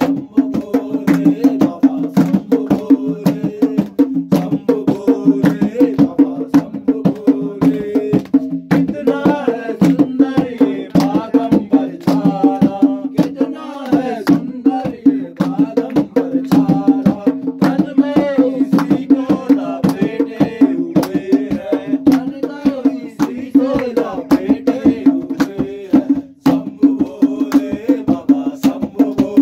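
Garhwali Shiv bhajan: a voice singing a devotional melody over a steady low drone and fast, continuous percussion strikes.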